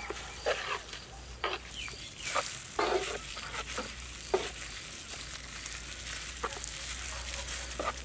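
Wet stirring and squelching as khoya is worked into thick mango juice by gloved hand and spoon in a large aluminium pot, with scattered short, sharp sounds.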